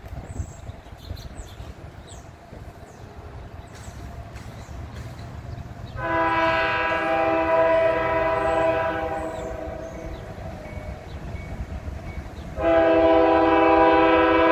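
Nathan K5LA five-chime air horn on a Norfolk Southern diesel locomotive sounding two long blasts, the first about six seconds in and fading out after about four seconds, the second starting near the end.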